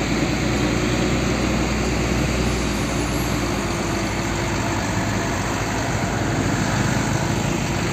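A heavy diesel tanker truck's engine running steadily, a low, even rumble with road and traffic noise around it.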